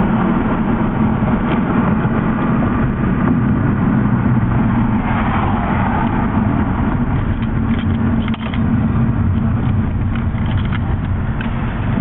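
Ford Focus engine running steadily at low revs as the car drives, with road noise, heard from inside the cabin. A short click sounds a little past the middle.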